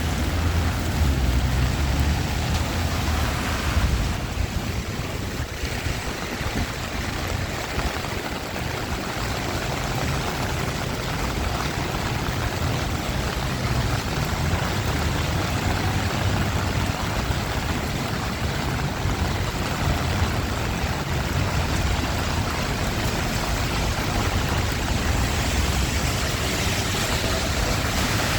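Steady rushing noise of rain and city traffic, with a low engine rumble underneath that eases off for a while about four seconds in and comes back.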